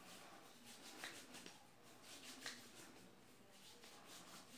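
Near silence, with faint soft rubbing as two hands work hand cream into the skin, a little louder twice.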